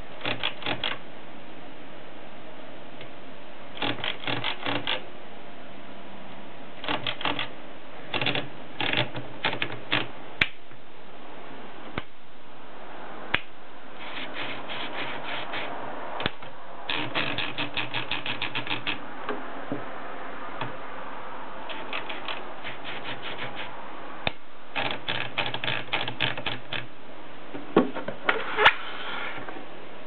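Continental typewriter being typed on: runs of rapid key strikes clacking in bursts of a second or two, separated by pauses, with a few single sharper clacks in between and several louder strikes near the end.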